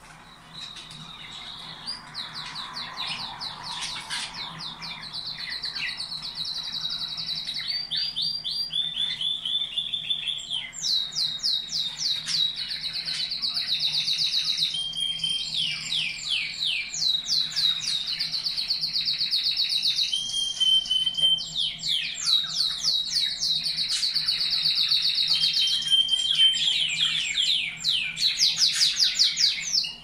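Domestic canary singing a long, unbroken song of rapid trills. Each trill is a run of quickly repeated notes, and the song jumps to a new pitch every second or two. It starts softer and grows louder over the first few seconds.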